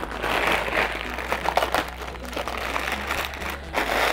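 Clear plastic sleeve rustling and crinkling as a folded white fabric backdrop is handled and pressed into it, an uneven crackly rustle.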